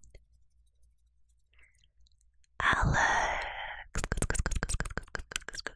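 A close-miked breath or sigh into the microphone, starting suddenly a little past halfway and fading over about a second. It is followed by a fast run of wet mouth clicks right at the mic.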